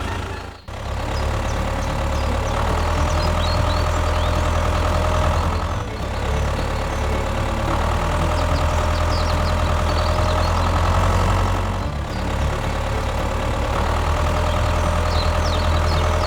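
A mini tractor's engine running steadily, with brief dips about a second in and then about every six seconds.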